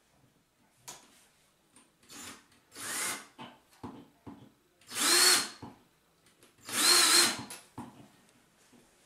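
Cordless drill boring into the tile top of a shower curb in short trigger bursts. Each burst comes up to a whine, and the two loudest and longest come about five and seven seconds in.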